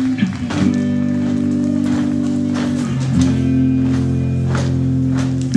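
Music with held guitar and bass chords that change about every three seconds, with scattered sharp hits over them.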